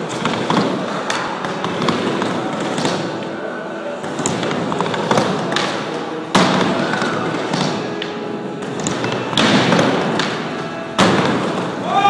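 Skateboard rolling on wooden ramps, with repeated thuds and clacks as the board hits the ramp and coping during blunt stalls; two loud slams about six and eleven seconds in. Voices in the background.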